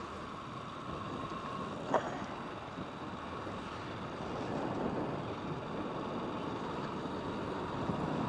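Steady running noise of a motorbike riding along a highway, engine and wind on the microphone mixed into an even rush. A single short knock about two seconds in.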